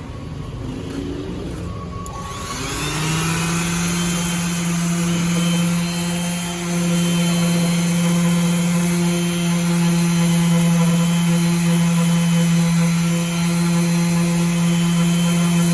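Makita M9202M orbital sander switched on about two seconds in. It spins up with a rising whine, then runs steadily at its single speed with a strong even hum.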